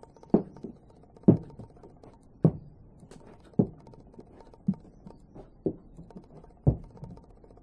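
Slow footsteps on the carpeted floor of a railway carriage, a dull thud about once a second.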